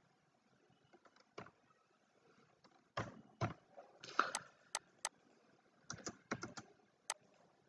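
Faint, scattered computer keyboard keystrokes: single sharp taps, with a quicker run of several taps about six seconds in.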